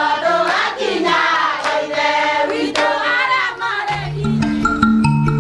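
A group of women singing together, with hand claps about once a second. About four seconds in, this gives way to instrumental music with repeated mallet-percussion notes.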